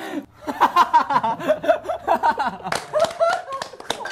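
A young man laughing hard in quick, repeated bursts, with others laughing along.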